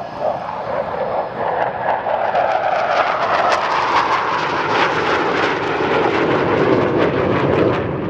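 Two Saab JAS 39 Gripen C fighters' Volvo RM12 turbofan jet engines on a low formation pass: a rushing jet noise that grows louder, crackles, and falls in pitch as the jets go by, easing off near the end.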